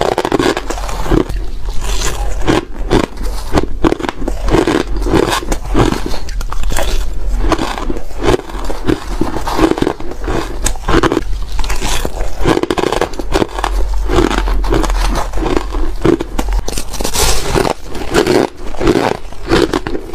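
Close-miked crunching of crushed ice being bitten and chewed: dense crisp crackles over a steady chewing rhythm of about two chews a second.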